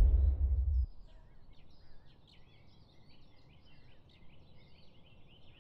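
A deep rumble cuts off abruptly about a second in, leaving faint chirping of small songbirds, rapid short notes over quiet room tone.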